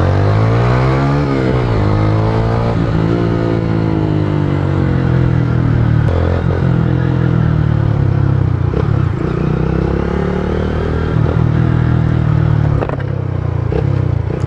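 Small motorcycle engine heard from the rider's seat, rising in pitch as it accelerates, dropping about a second and a half in, then running fairly steadily at riding speed.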